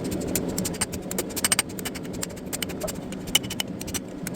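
Irregular light metallic clinks and taps from blacksmithing work on the trammel hook, some with a brief high ring, over a steady low hum.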